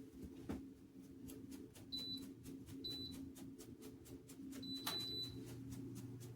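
Short high electronic beeps from a space heater's control panel: three beeps, the third longer. Under them are a steady low hum and a run of quick, regular ticks, about five a second.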